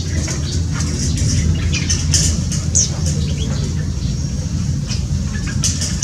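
Several short, high chirps from small birds over a steady low rumble.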